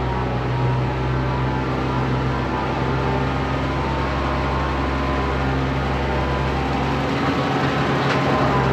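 International 656 tractor engine running steadily, with a light click near the end.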